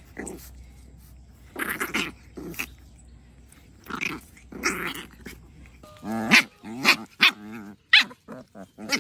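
A puppy growling in short rough bursts, then from about two-thirds of the way in a quick run of short, high yaps and barks.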